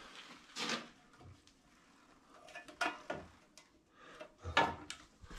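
Handling noise from an old multi-gang light switch assembly and its cables being moved by gloved hands: a few short rustles and knocks.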